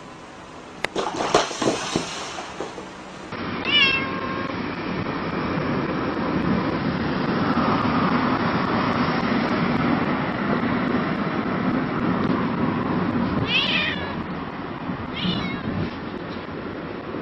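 A few sharp knocks, then a black-and-white cat meowing inside a car: three short meows over a steady rush of car noise.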